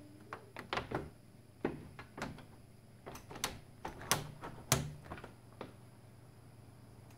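A run of irregular sharp clicks and knocks on a glass door and its plastic frame, about fifteen in the first five and a half seconds, the loudest a little after three, four and four and a half seconds in.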